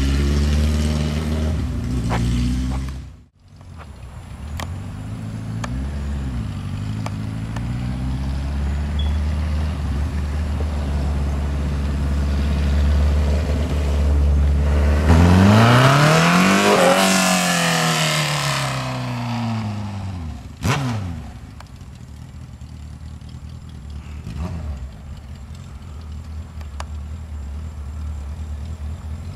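Suzuki Hayabusa sport bike's inline-four engine running and revving as it rides along the street, its pitch rising and then falling. A car drives past midway, the loudest moment, and the sound cuts out briefly about three seconds in.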